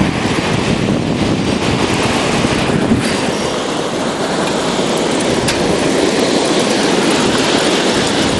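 Storm wind and rain making a steady, dense rush of noise.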